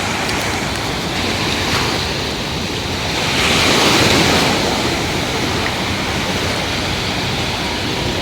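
Sea waves washing onto the beach, one swelling louder about four seconds in, with wind buffeting the microphone.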